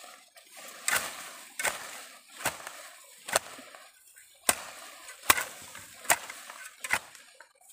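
A hand tool chopping repeatedly: eight strikes a little under a second apart, each followed by a short scraping rustle.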